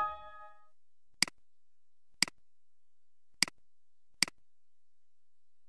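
A mouse click followed by a short computer chime of several tones that dies away within about a second. Then four single mouse clicks, roughly a second apart, over a faint steady hiss.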